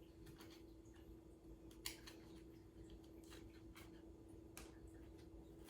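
Near silence: room tone with a steady faint hum and a scattering of faint ticks and taps, one a little more distinct about two seconds in.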